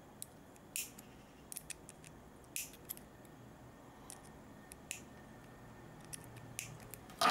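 Small side cutters snipping at the thin metal can of a canned crystal oscillator to cut it open: about a dozen sharp, separate clicks and snips at uneven intervals, the loudest snap at the very end.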